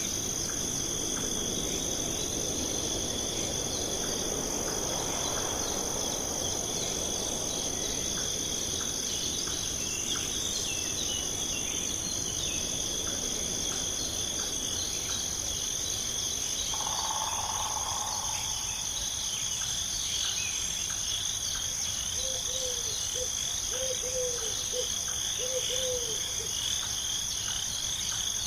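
Steady chorus of crickets and other insects trilling, with a soft rushing hiss under it for the first several seconds and a string of short low calls near the end.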